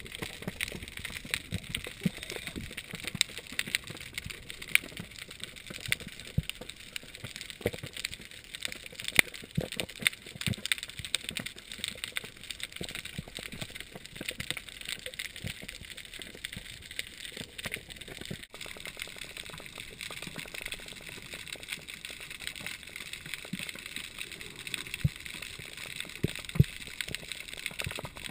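Underwater ambience heard through a camera's waterproof housing: a steady hiss full of dense, irregular crackling clicks from the reef. The sound breaks off briefly about two-thirds of the way through.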